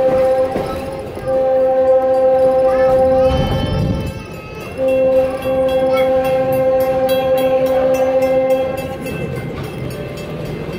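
A locomotive sounds its warning for a road grade crossing in long, steady blasts of one pitch. The first blast ends about a second in, the next lasts about two seconds, and a third runs about four seconds from roughly five seconds in, all over the low rumble of the train rolling.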